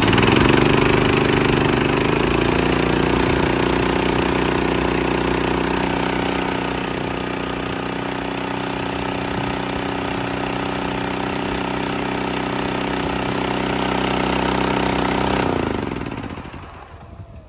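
Small gas engine of a VMAX air compressor running, climbing to speed in the first couple of seconds and then holding steady. About fifteen seconds in it is shut off and winds down to a stop.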